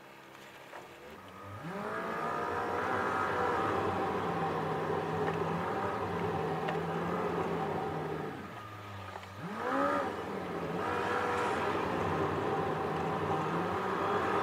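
Car engine and road noise heard inside the cabin as the car pulls away from a standstill: the engine note climbs about a second and a half in, drops back briefly around eight seconds, climbs again near ten seconds, then runs steadily.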